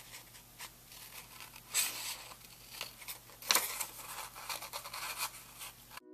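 Scissors snipping through a thin book page in a series of short cuts, the loudest about two seconds in and again about three and a half seconds in.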